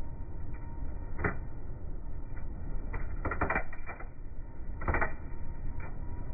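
Flash butt welding of steel rails: sharp crackling pops from the flashing between the rail ends, over a steady low rumble. A rapid cluster of pops comes a little past three seconds in, and another strong burst about five seconds in.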